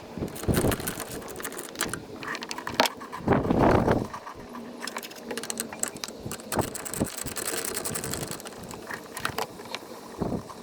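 Tools loosening and removing the bolts that hold a brake master cylinder to the brake booster: a run of metallic clicks and clinks, with a couple of louder bursts.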